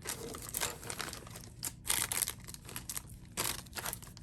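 Plastic packaging crinkling as it is handled, in irregular bursts, the loudest about halfway through and again near the end.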